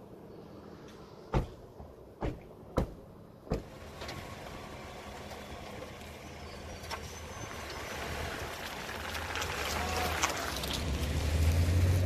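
Doors of a Chevrolet SUV slammed shut four times in quick succession, then the SUV's engine running as it pulls away past the microphone, the sound of engine and tyres growing steadily louder.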